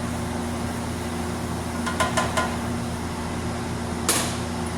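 Steady fan-like hum, with three quick metallic clinks about halfway through and a short scrape near the end, typical of a spoon stirring in a saucepan.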